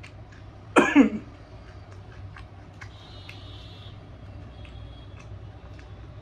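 A person coughs once, loud and short, about a second in. Faint scattered clicks sound around it.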